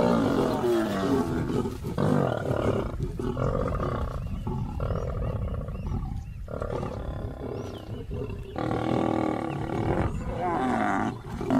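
Lions growling and snarling in a string of rough bursts, squabbling over a carcass as the males move to take it from a feeding lioness.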